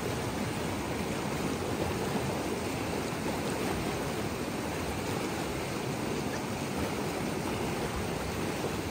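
Fast-flowing mountain river rushing steadily over rocks and whitewater riffles.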